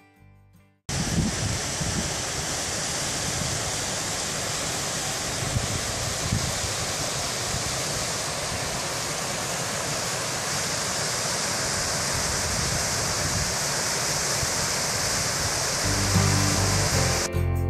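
Mountain creek and waterfall rushing over rocks: a steady, loud rush of water that starts about a second in, after guitar music fades out. The guitar music comes back in near the end.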